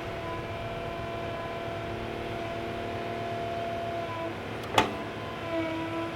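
Small electric motors of a radio-controlled toy excavator whining steadily. A single sharp click comes just before the end, and after it the whine starts and stops in short pulses.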